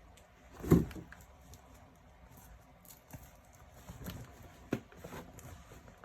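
Handling knocks from a folding portable toilet chair being moved and packed: one loud thump about a second in, then a few lighter knocks and clicks.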